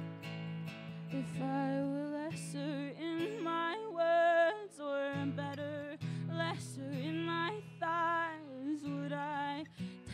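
Live solo song: acoustic guitar chords strummed under a woman's singing voice, which comes in about a second in with held notes that waver in pitch.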